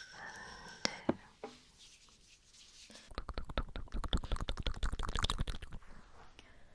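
Close-miked ASMR mouth sounds: two sharp clicks about a second in, then about three seconds of rapid mouth clicking and crackling.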